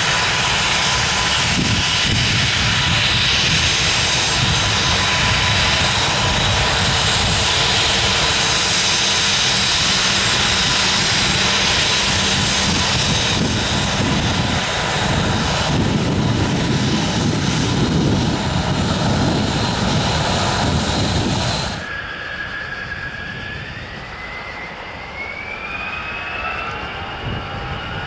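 Jet engines of an Airbus A320-family airliner, CFM56s, running loud and steady at close range as the aircraft moves past, with a steady whine over the rush. About twenty seconds in the sound cuts to a quieter, more distant jet whose engine whine rises steadily in pitch as it spools up on the runway for takeoff.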